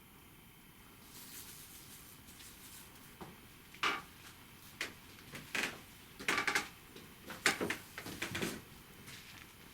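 Handling noises: a run of sharp clicks and knocks with a few short scrapes, starting about three seconds in and going on irregularly for several seconds.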